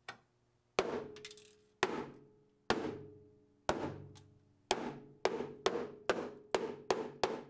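Hammer blows on the car body's sheet-metal panel, each strike ringing briefly with a metallic tone. About one blow a second at first, quickening to two or three a second in the second half. The blows knock the ground-out spot welds through so the outer panel starts to pull away.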